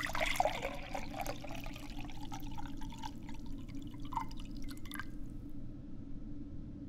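Green juice pouring from a countertop drink machine into a glass. The pitch rises as the glass fills, a few drips follow, and it stops about five seconds in. A low steady hum runs underneath.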